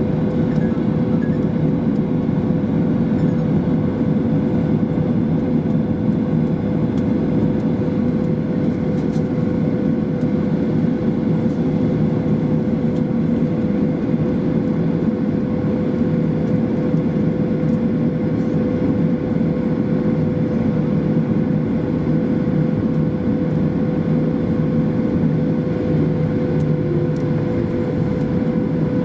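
Steady cabin noise inside a Boeing 737-800, its CFM56-7B engines running at low power on the ground: an even rumble with a steady hum held at one pitch, unchanging throughout.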